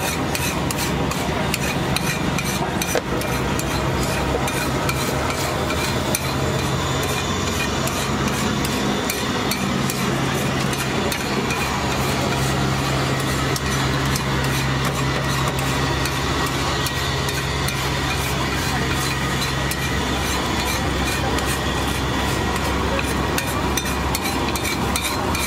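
Metal spatula scraping and tapping quickly and repeatedly on a flat griddle (tawa) as egg masala mixture is spread and chopped, with the egg sizzling on the hot metal. A steady low hum runs underneath and stops about twenty seconds in.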